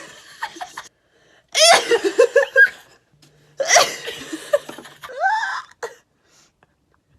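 Girls sneezing and laughing: two sharp, breathy bursts about two seconds apart, mixed with giggling, and a short squeal that rises and falls just after the second burst.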